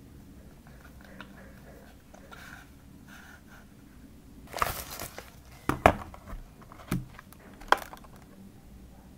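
Hands handling a mechanical keyboard's small accessories and packaging: soft rustling, then a brief scraping slide about halfway through, followed by a few sharp plastic clicks and knocks.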